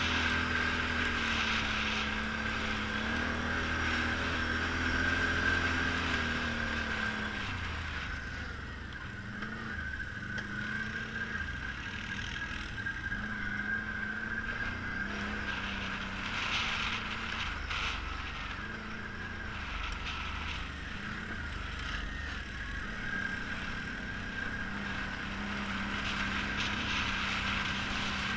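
ATV engine running while riding a trail, its pitch rising and falling with the throttle and dropping about seven seconds in, with a steady high whine over it.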